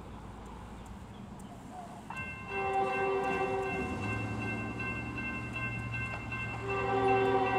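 Diesel locomotive's multi-chime air horn sounding for the crossing, a chord of several steady notes beginning about two and a half seconds in, easing off, then blaring again near the end. Under it the low rumble of the approaching locomotives' engines grows.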